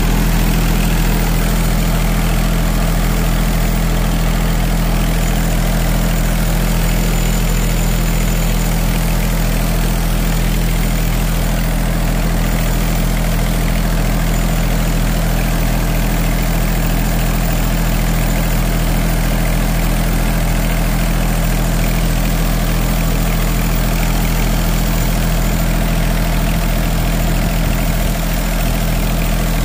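Riding cultivator's engine idling at a steady, unchanging speed, with a constant low hum.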